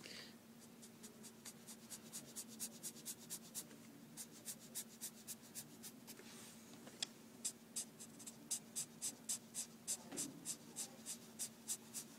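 Pencil shading on paper: quick back-and-forth scratching strokes at about four a second, pausing briefly around the middle.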